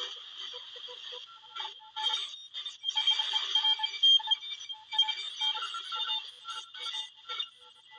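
Shortwave radio receiver tuned around 14 MHz, giving out warbling electronic tones and hiss that cut in and out irregularly, with no low end.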